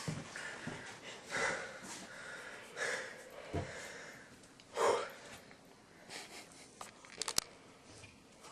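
Breath noises from a person: a few separate sniffs or breaths, a second or two apart, followed by a quick cluster of sharp clicks about seven seconds in.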